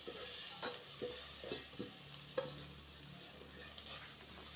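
Chopped greens tipped from a steel bowl into a hot cooking pot and sizzling, with several short knocks and scrapes of the bowl against the pot in the first couple of seconds.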